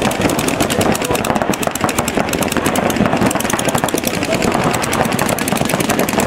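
Paintball markers firing rapid, continuous volleys of popping shots, several guns at once.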